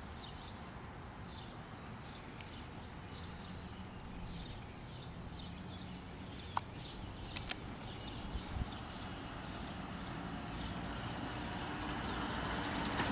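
Outdoor ambience: small birds chirping in short repeated calls over a low rumble of traffic, with a couple of sharp clicks midway and a passing vehicle swelling louder near the end.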